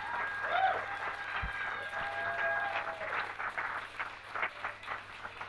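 Small audience applauding and cheering, with a few whoops in the first second or so; the clapping thins out toward the end. A short low thump about a second and a half in.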